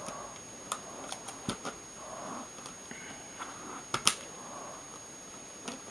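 Back cover of a Nexus 7 (2012) tablet being pressed onto the tablet body and snapped back into place: a scattering of small sharp clicks from its edge clips, the loudest about four seconds in.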